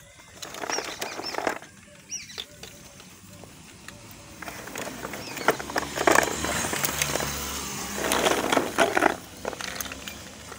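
Small unfired clay diyas clinking and clattering against one another as they are handled and set down around a pile of clay pots, in several spells of quick clicks.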